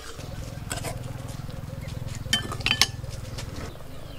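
A metal ladle and utensils clinking against a metal cooking pot: a few light clinks about a second in and a louder cluster past the middle, over a steady low hum.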